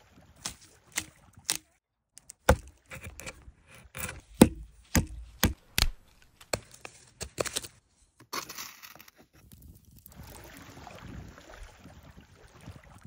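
A green wooden stick being split apart by hand: a run of sharp cracks and snaps, about two a second. After a brief hiss, there is a softer, steady rustle of hands working a raw trout on wet gravel.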